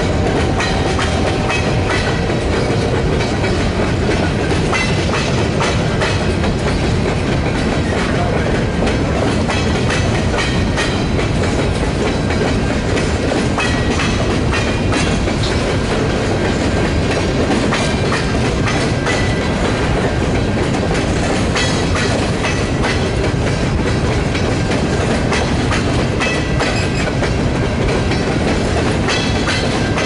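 Covered hopper and tank cars of a long freight train rolling past at close range: a steady rumble of steel wheels on rail with clickety-clack over the joints and brief metallic squeals now and then.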